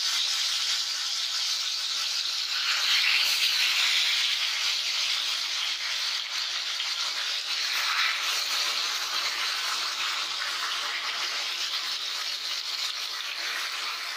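Marinated fish slices sizzling as they deep-fry in hot oil in a pan, a steady dense hiss.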